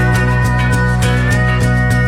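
Background music: the instrumental stretch of a song between sung lines, with a steady, regular beat.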